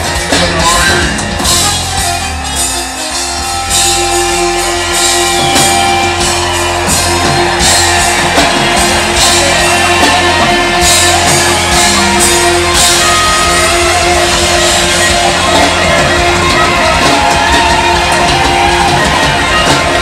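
A live reggae band playing, with electric guitar, bass, drum kit and keyboards; a long held note runs through the middle of the passage.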